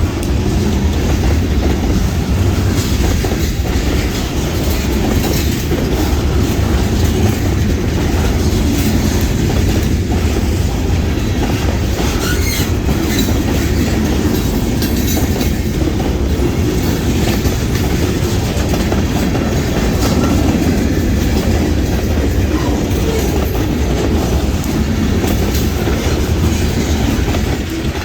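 DeQueen and Eastern freight train rolling steadily past, its car wheels clacking over the rail joints with a deep rumble and an occasional short squeal.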